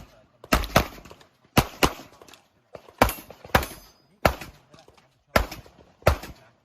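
Handgun shots during a practical-shooting (IPSC) course of fire: about nine sharp cracks with short echoes, some fired as quick pairs about a quarter second apart and the rest spaced up to a second apart.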